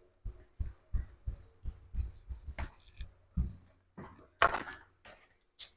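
Soft footsteps and clothing rustle as people get up and walk off: a string of light thumps, two to three a second, with a louder rustle about four and a half seconds in.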